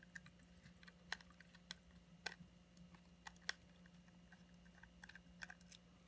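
Faint, scattered clicks and ticks, about a dozen spread irregularly, from a screwdriver and small screws working against the plastic gear-case shell of a Roomba 650 wheel module as a tight screw is undone and the module is handled. A low steady hum sits underneath.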